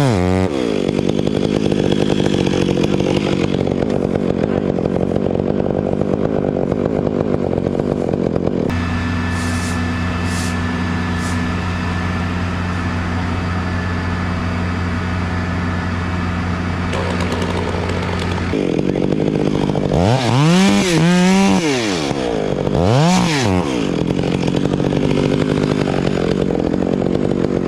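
Two-stroke chainsaw engine running steadily at low speed, its note changing abruptly about nine seconds in. Near the end it is revved up and let back down twice.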